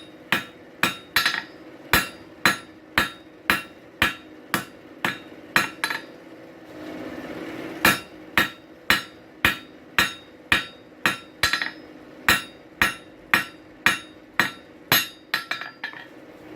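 Blacksmith's hammer striking hot steel on an anvil at a steady pace of about two blows a second, each blow ringing briefly, as the drive hook is forged. A short pause comes a little past the middle, and the blows turn quicker and lighter near the end.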